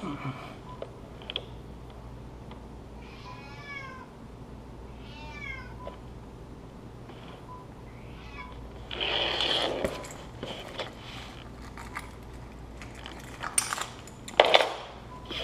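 Mouse stuck on a glue board squeaking: two runs of short, high, falling squeaks about three and five seconds in. Louder rustling noises come around the middle and near the end.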